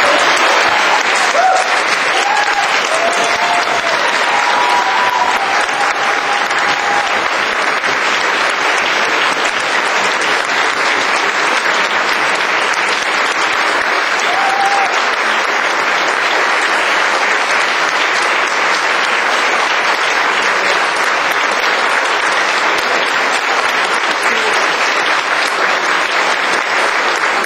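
Audience applauding: long, steady applause that breaks out right after the closing line of a speech.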